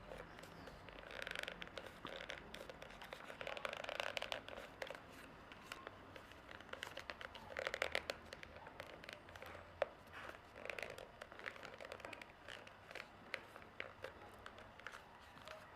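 Paper rustling and being creased by hand in irregular short crackly bursts, with scattered small clicks. The loudest burst comes about eight seconds in.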